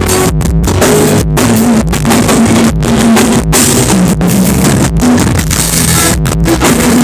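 Loud band music with a drum kit, bass and guitar playing a steady beat, broken by several brief dropouts in the sound.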